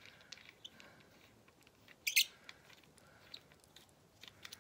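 Brass projection door stop being unscrewed by hand from its threaded base: faint scattered clicks and scratchy ticks of metal threads and fingers on brass, with one short, louder scratch about two seconds in.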